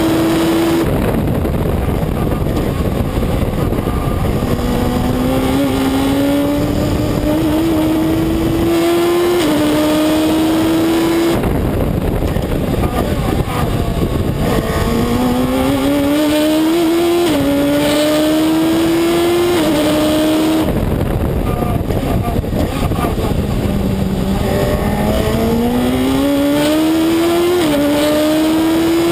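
Reynard Inverter sports racing car's engine heard onboard at race pace: the revs climb again and again through the gears, stepping back at each quick upshift. The engine eases off twice, about nine seconds in and again about twenty seconds in, before accelerating hard once more.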